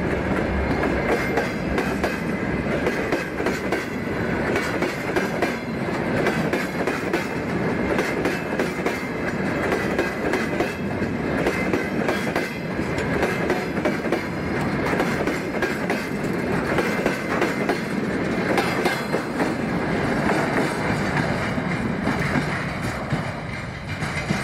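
Freight wagons (tank cars) rolling past at close range, the wheels clicking over the rail joints in a steady run. Near the end it eases off as the last tank car moves away.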